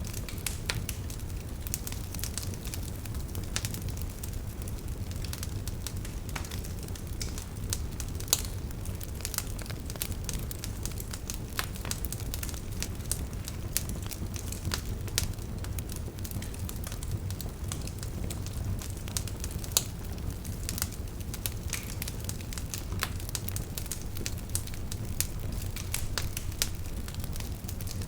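Wood fire crackling steadily, with frequent sharp pops and snaps over a low, steady rumble of the flames.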